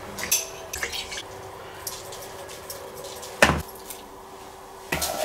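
Scattered light clinks and taps of kitchenware being handled while a fish head is seasoned in a plastic bowl, with one sharper knock about three and a half seconds in.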